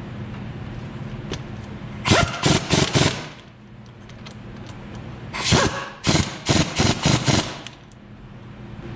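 Impact wrench tightening bolts in two bursts of short rattling pulses, the first about two seconds in and a longer one a few seconds later, over a steady low hum.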